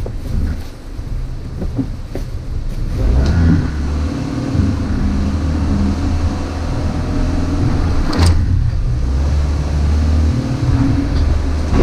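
Subaru Outback's engine pulling at low speed over a rocky, rutted trail, a low drone that steadies into an even hum about three seconds in. There is one sharp knock about eight seconds in.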